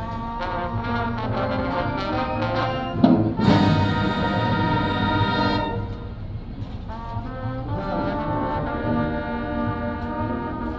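Marching band brass (trumpets and trombones) playing held chords, with a sharp loud hit about three seconds in followed by a bright, full chord.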